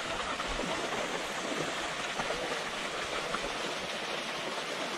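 Steady rushing of water from a small outflow pouring into the lake at the bank.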